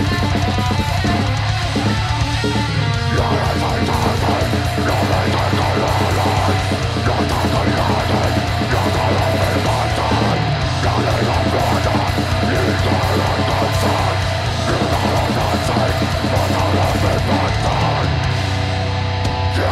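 Live heavy metal band playing: distorted electric guitar and bass over a drum kit, loud and unbroken.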